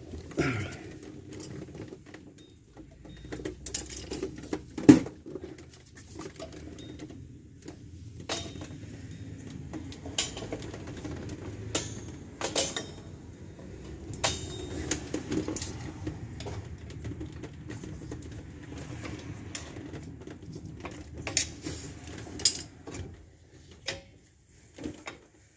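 Scattered metal clicks and clinks of hand work on a rear drum brake's shoes, springs and clips, over a steady low hum.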